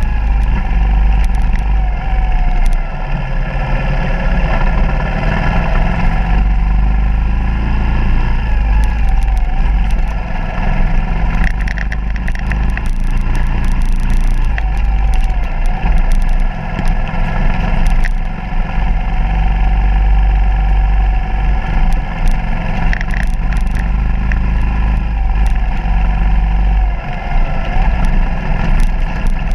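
Suzuki DR200's single-cylinder four-stroke engine running as the bike is ridden along a rough dirt trail, its pitch rising and falling with the throttle, with scattered knocks and rattles from the bumps.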